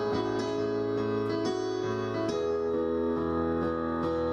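Background piano music: a gentle instrumental with held chords, moving to a new chord a little past halfway.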